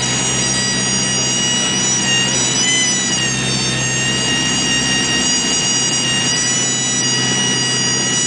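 Cessna 172's piston engine and propeller droning steadily in flight, heard inside the cabin.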